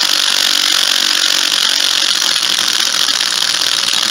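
Power drill running steadily, spinning a Polaris two-stroke ATV cylinder head face-down on wet 400-grit wet/dry sandpaper, with a steady high hiss of the head's gasket face being sanded. The head is being resurfaced flat because it is warped and was making the head gasket leak.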